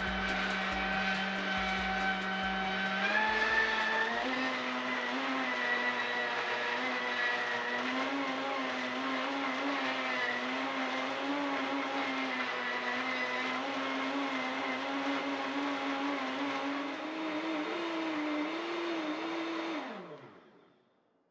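Vitamix Ascent A3500 blender motor running at high speed with the 48-ounce AER disc container, muddling lemon and lime slices with ice in water. Its pitch steps up twice in the first few seconds, holds steady with a slight waver, then falls and stops near the end as it is switched off.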